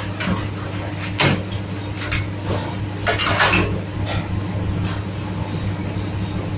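Chicken being breaded by hand in a tray of flour, with scattered knocks and clatter from the pieces and wire baskets against the breading table. A steady hum of kitchen equipment runs underneath.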